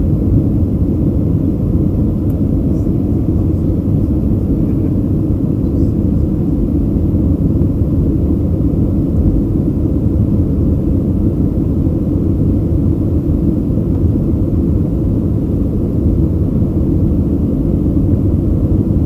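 Airliner cabin noise: a steady, loud low rumble from the engines and airflow, heard from a window seat in flight.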